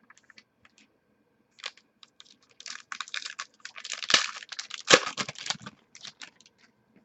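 Quick clicks and scratchy rustles of hands working at a tabletop, dense and uneven through the middle with the loudest strokes about four to five seconds in.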